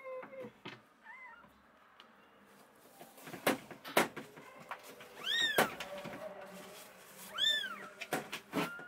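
Newborn kittens mewing: a faint short mew about a second in, then two louder, high, arching mews, one just past the middle and one near the end. Several sharp taps fall between them.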